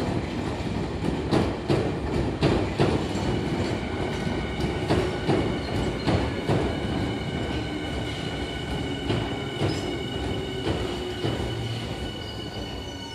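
Tokyu 5050 series 4000-subseries electric train running past, its wheels clicking irregularly over rail joints over a steady rumble. A steady high whine joins about three seconds in, and the sound eases off slightly near the end.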